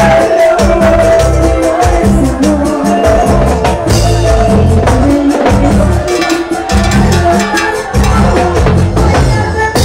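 Live band playing loud Latin dance music over a PA, with a driving bass line and steady drum and percussion beat.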